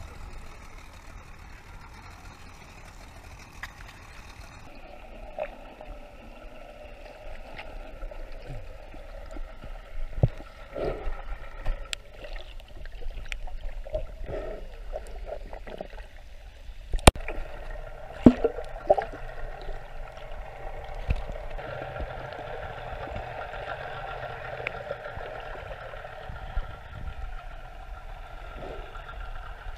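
Muffled water noise heard through an underwater camera housing: sloshing and bubbling, with scattered knocks and clicks and one sharp knock about halfway through.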